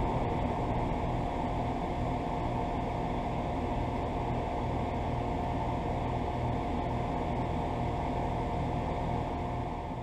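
Outdoor condenser unit of a 2008 Heil Quiet Comfort central air conditioner: a steady whir of the condenser fan and moving air, with a faint steady tone.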